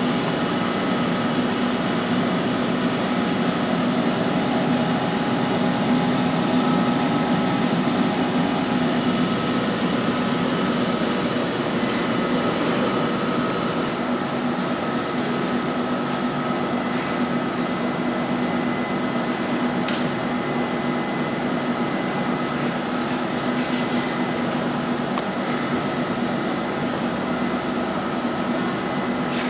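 Steady electrical hum and fan noise of a running DingTec ZL3000-S high-frequency PVC welding machine, with a few light clicks in the second half.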